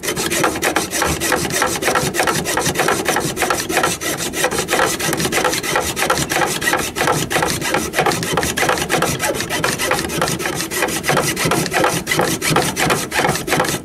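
Hacksaw cutting through a seized bolt with fast, steady back-and-forth strokes; the bolt is being sawn off because its nut is seized and it just spins.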